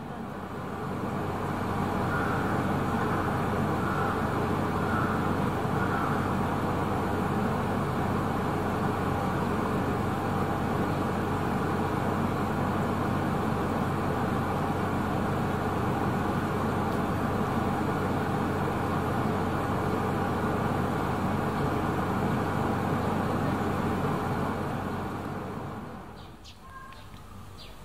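Steady mechanical running noise, a low hum under a dense rumble, which drops away sharply about 26 seconds in.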